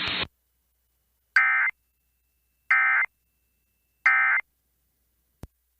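NOAA Weather Radio Emergency Alert System end-of-message data tones: three short, harsh digital bursts about a second and a third apart, marking the end of the alert. Radio hiss cuts off just before the bursts, and a faint click comes near the end.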